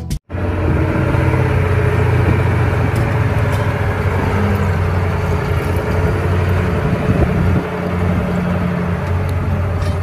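Caterpillar 988B wheel loader's diesel engine running steadily under load as the machine carries a large marble block on its forks, a loud deep hum that eases a little about three-quarters of the way through.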